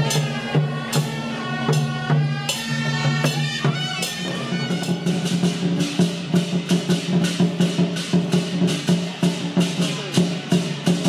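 Temple-procession percussion music with drums and cymbals. In the first few seconds a melody of held notes plays over the beat. From about four seconds in, a steady quick beat of drum and cymbal strikes takes over, accompanying a dragon dance.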